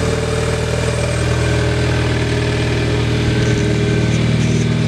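2013 Hyundai Veloster Turbo's turbocharged 1.6-litre four-cylinder engine idling steadily.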